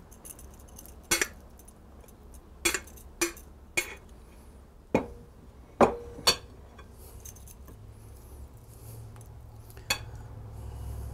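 Heavy glass mixing bowl clinking and knocking as the last of a thick filling is scraped from it and the bowl is moved and set down on a wooden counter: about eight sharp, separate knocks, a few with a short glassy ring.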